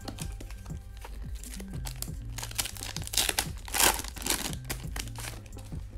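Foil wrapper of a hockey card pack crinkling as it is handled and torn open, with the loudest crackling bursts about three to four seconds in, over background music.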